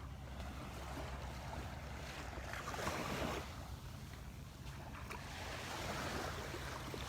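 Gulf of Mexico surf washing onto the beach in two swells, about three and six seconds in, with wind rumbling on the microphone.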